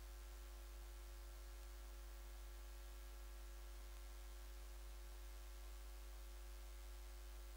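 Faint, steady electrical mains hum with light hiss, unchanging throughout.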